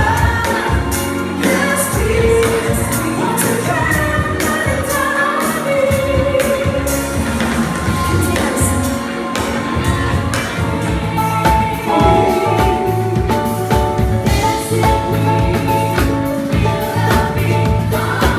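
A live band plays a song with a group of singers, heard through the PA: drum kit with cymbals, bass and keyboards under the voices, recorded raw on a phone. The bass and lower parts grow fuller about halfway through.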